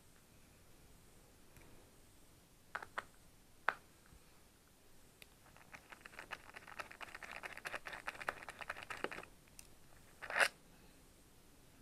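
Small metal clicks and ticks of a screwdriver taking screws out of an iMac's case: a few separate clicks, then a few seconds of rapid clicking, and one louder sharp clack near the end.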